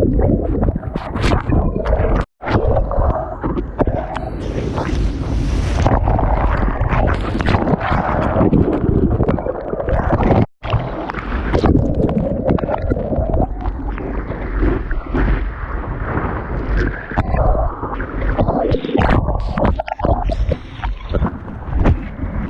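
Water sloshing and gurgling with wind buffeting a small action camera's microphone, loud and uneven, broken by two sudden short dropouts.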